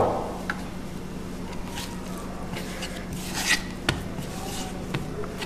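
Hands kneading soft, sticky risen dough on a board: a thump at the start, then faint scattered squishing and slapping as the dough is pressed and folded.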